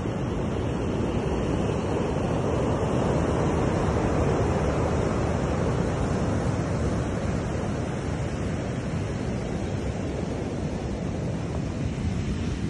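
Ocean surf breaking and washing up a black sand and lava pebble beach, a steady rushing wash that swells a few seconds in and then eases.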